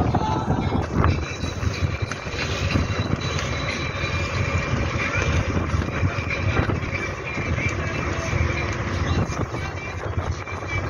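Steady rumble of a tour boat under way, with wind buffeting the microphone on the open deck. Passengers' voices are faint behind it.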